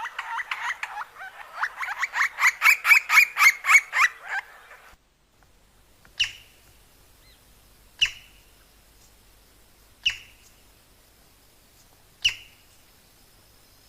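Woodpecker calling: a fast run of sharp notes, about three or four a second, growing louder and then stopping abruptly about five seconds in. It is followed by four single sharp calls spaced about two seconds apart.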